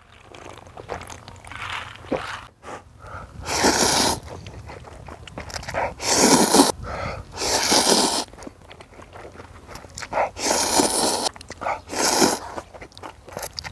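Close-up eating of spicy ramen noodles and kimchi: about five loud, noisy bursts of a second or less, with quieter chewing and crunching between them.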